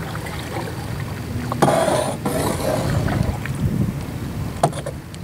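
Double-bladed paddle strokes splashing in the water beside a plastic canoe, over a low rumble of wind on the microphone. The loudest splash comes about a second and a half in, and a single sharp knock sounds near the end.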